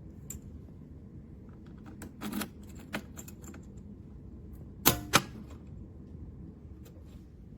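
Handling clicks and knocks from a small metal pistol safe: a short rattle about two seconds in, a single click, then two sharp clacks about a third of a second apart near the middle.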